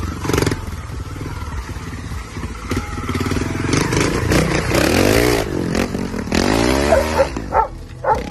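Trials motorcycle engine revving up and down in quick throttle blips as the bike picks its way over rocks and roots, followed by a few short sharp sounds near the end.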